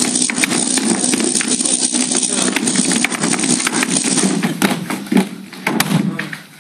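A loud electrical crackling-and-buzzing stage sound effect: a steady low hum under dense, irregular crackles, standing for the current being switched into the electrodes and earphones. It thins out about four and a half seconds in and fades near the end.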